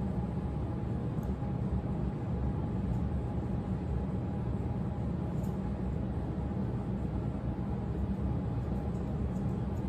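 A steady low hum and rumble, like a fan or appliance running, with a faint steady tone above it. A few faint snips of grooming scissors trimming a dog's face fur.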